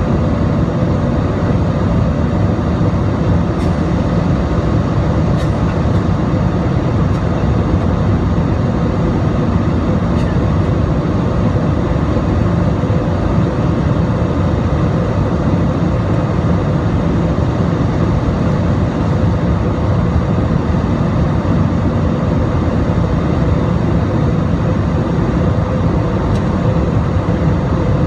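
Steady cabin noise of an Airbus A320-216 airliner in flight, heard from a window seat over the wing: the even drone of its CFM56 turbofan engines and the rush of air, with a few steady hum tones in it.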